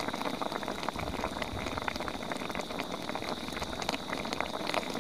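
Gamjatang (pork-bone stew) boiling hard in a pan, a dense, steady crackle of popping bubbles.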